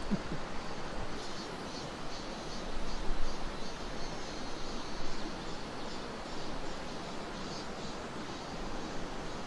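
Steady rushing of a mountain valley stream.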